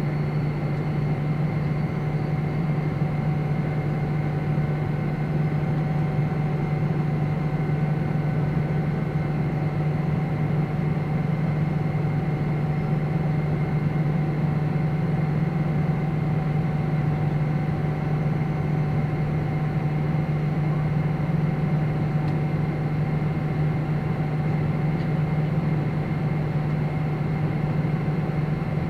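Cabin noise of a Boeing 777-300ER climbing after take-off, heard from a window seat beside its GE90 turbofan: a steady low drone with a few fainter steady higher tones above it, unchanging throughout.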